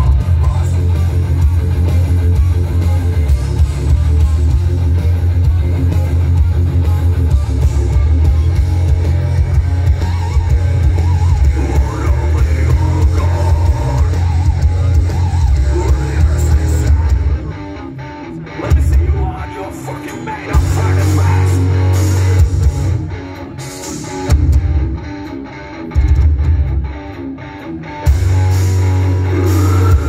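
Heavy metal band playing live, heard from the crowd through a phone's microphone: distorted electric guitars and drum kit with a heavy, dominant low end. About two thirds of the way in, the playing turns into stop-start hits with short gaps between them.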